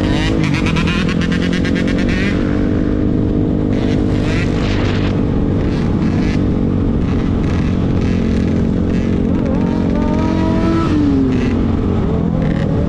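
A motor vehicle engine running steadily and loudly, with a brief drop in pitch near the end.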